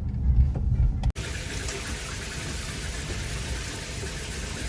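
A low rumble for about the first second, then after a sudden cut, a shower's water spray running steadily as an even hiss.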